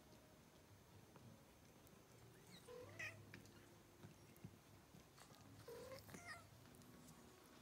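Newborn kittens, eyes not yet open, mewing faintly while nursing: two short calls that rise in pitch, about three seconds in and again about six seconds in.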